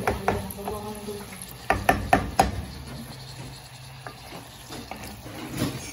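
Wooden spoon stirring corn kernels in a stainless steel pot as they fry in butter, with soft sizzling and scraping. A few sharp knocks of the spoon against the pot come about two seconds in.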